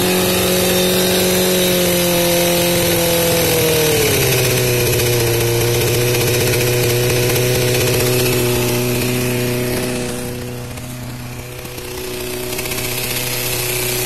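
2003 Suzuki GSX-R 600's inline-four engine running. The revs drop about four seconds in and settle to a steady idle, and the sound is briefly quieter around ten seconds in.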